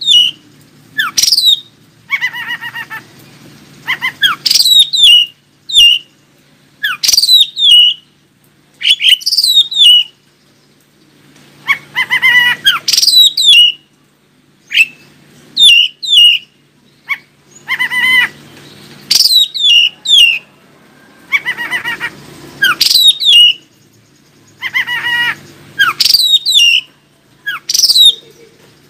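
Male oriental magpie-robin singing: a run of loud, short song phrases every second or two, full of whistled notes sliding down in pitch, with brief pauses between phrases.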